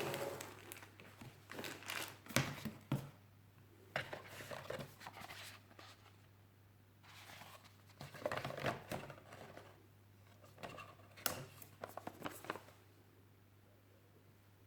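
Packaging and parts being handled by hand: crinkling rustles and small clicks come in irregular bunches, then stop near the end.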